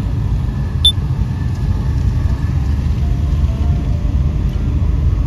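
Kei van driving along a road: a steady low rumble of engine and tyre noise, with one brief sharp click about a second in.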